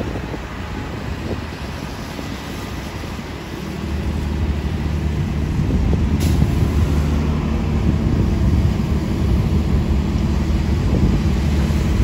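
Transit bus engine running, growing louder about four seconds in, with a brief sharp sound about six seconds in.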